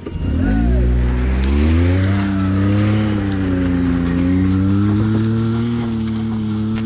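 A motor vehicle engine starts about half a second in and runs, its pitch rising over the next second or two and then holding fairly steady with a slight waver.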